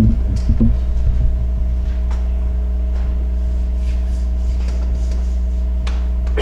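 Steady low electrical hum with a few faint knocks and rustles.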